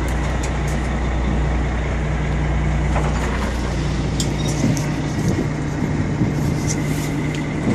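A fishing boat's engine running with a steady low drone under a noisy hiss. The deepest part of the drone drops away about two-thirds of the way through.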